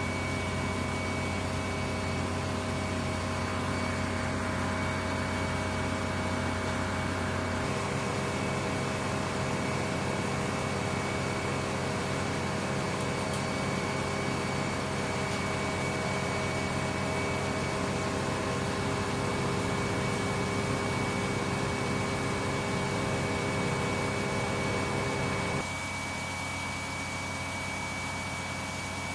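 Steady drone of flight-line machinery running, with several steady whining tones over a broad hum. The mix changes abruptly about a quarter of the way in, and the sound drops in level near the end.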